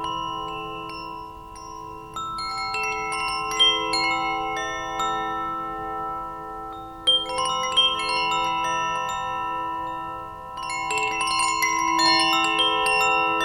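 Wind chimes ringing, their tones overlapping and sustaining, with fresh clusters of strikes about two seconds in, about seven seconds in and again near the end.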